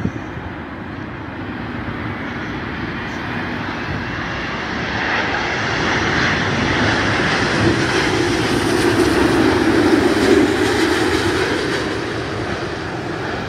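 Boeing 787-9 Dreamliner on final approach with its turbofan engines running, growing steadily louder as it nears and passes close. The noise is loudest about ten seconds in, then begins to ease.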